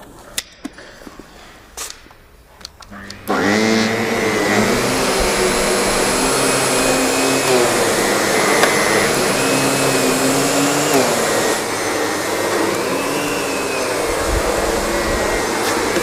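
A Miele Complete C3 canister vacuum with an SEB-236 powered brush nozzle switches on about three seconds in. It then runs steadily as the nozzle is pushed over carpet, its hum wavering in pitch now and then. A few faint clicks come before it starts.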